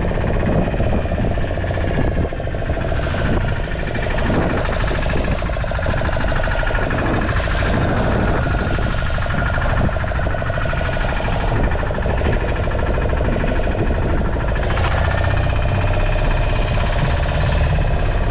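A fishing boat's engine running steadily under way, with wind and rushing water against the hull.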